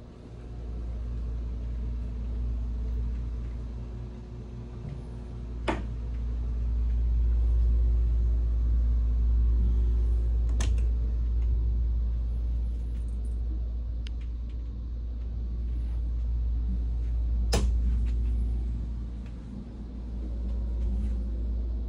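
Low, steady rumble with a hum of a few fixed tones, swelling and easing over several seconds, typical of running machinery. Three sharp clicks break in, about six, eleven and eighteen seconds in.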